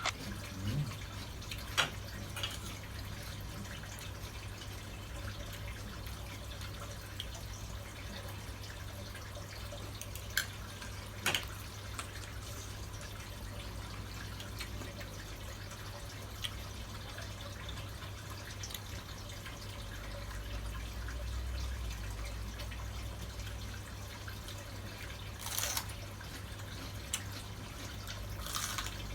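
Steady low hum with about five isolated sharp clicks or taps spread through it, the one about two seconds in and the one near eleven seconds the loudest.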